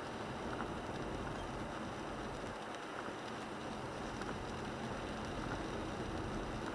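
Steady in-cabin road noise of a 1998 Toyota 4Runner driving on a wet road in the rain: tyres hissing on the wet surface, with rain on the body and the engine running underneath.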